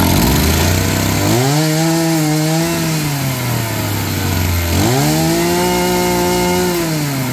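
Maruyama brush cutter's small petrol engine catching on the pull start and idling, then revved twice with the throttle trigger. Each rev rises, holds for a second or two, and drops back to idle.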